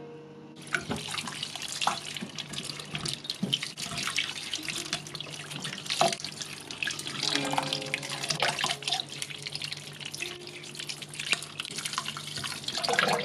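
Tap water running and splashing into an enamel bowl while hands rub and rinse a small turnip in it. The water starts about half a second in.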